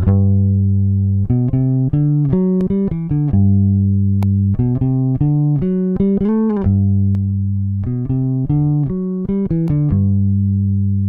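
Isolated bass guitar track played back through an Atlas Pro Audio Leviathan opto compressor: a line of plucked notes, some short and repeated, with a slide up and back down about six seconds in.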